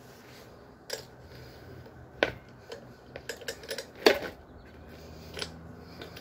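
Irregular metal clicks and knocks as a metal tool is worked between the tyre bead and the rim of a BMX wheel to pry the tyre off, the two loudest knocks about two and four seconds in.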